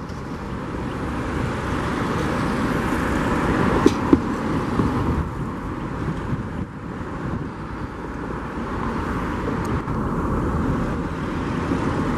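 Steady rumbling roar of outdoor engine and traffic noise with wind on the microphone, growing louder over the first few seconds; two sharp clicks about four seconds in.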